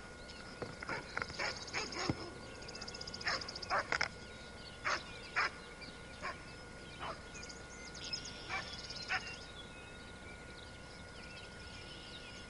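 Alaskan Noble Companion Dog barking at bison: a series of about a dozen short, sharp barks, irregularly spaced, that stop about nine seconds in.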